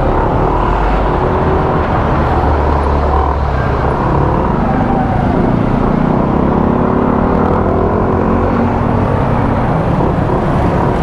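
Motor scooter riding on the road: a steady engine hum under heavy wind rush on the microphone.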